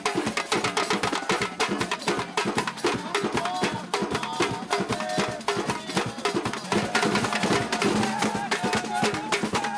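Samba de roda: hand drums and pandeiro tambourines playing a fast, steady rhythm, with voices singing over it.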